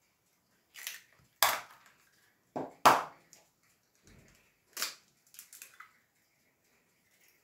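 Hen's eggs being cracked open into a plastic mixing bowl: a series of sharp shell cracks, the loudest about one and a half and three seconds in, with a few smaller crackles of shell near the end.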